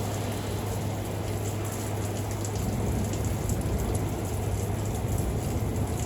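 Steady rain falling during a thunderstorm, an even hiss with many small scattered drop ticks, over a steady low hum.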